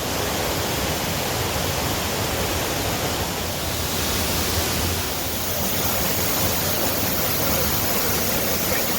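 A 30-metre rainforest waterfall pouring: a steady, even rush of falling water.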